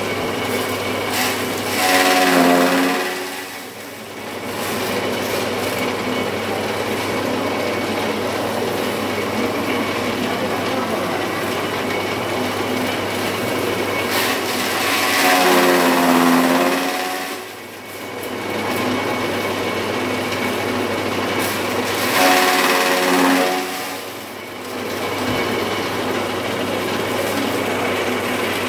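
Electric chaff cutter running steadily with a motor hum. Three times it grows louder and its pitch falls as a handful of dry straw is fed in and chopped, then it settles back.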